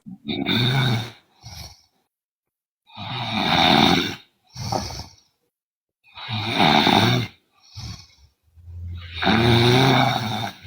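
A sleeping woman snoring heavily. There are four loud snores about three seconds apart, each followed by a shorter, quieter breath out.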